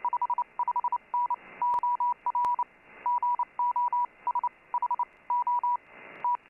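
Morse code (CW) signal on the 17-metre amateur band, heard through a FlexRadio Flex-5000 receiver: a steady mid-pitched tone keyed on and off in dots and dashes over receiver hiss. The keying stops shortly before the end, leaving a rise of band noise.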